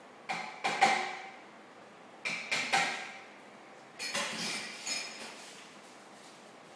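Three short bursts of sharp clicking, clinking knocks with a brief metallic ring, from a Siberian Husky puppy's collar tag and head-collar hardware knocking about as she works her head over a Kong toy.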